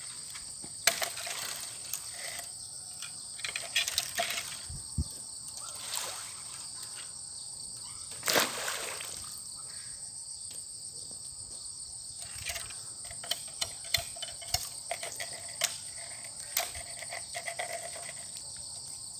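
Insects chirring steadily at a high pitch, with scattered light clicks and one louder knock about eight seconds in.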